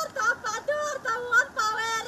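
A woman crying aloud, her high voice wavering and breaking into short sobbing cries.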